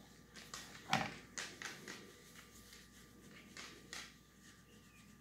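Intermittent rustles and soft knocks of a hand rubbing and patting a dog's fur close to the microphone, the loudest knock about a second in.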